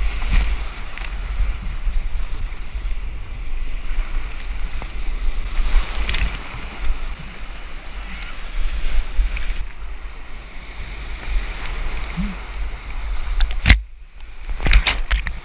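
Rushing, foaming white water of an artificial canoe-slalom channel, with heavy low wind and water buffeting on the camera's microphone and scattered splashes. Near the end a sharp splash, then the sound goes briefly muffled as the camera is dunked, before the rushing water returns.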